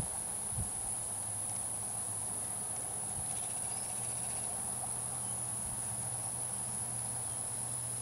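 Insects giving a steady, high-pitched, unbroken buzz.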